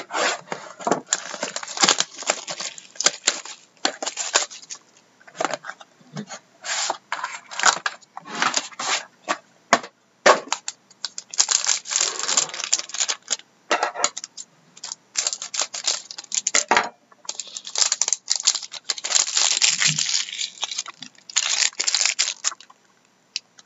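Trading card packaging being opened and handled: plastic wrap tearing and crinkling, with quick rustles and clicks of cardboard and cards, in bursts with short pauses.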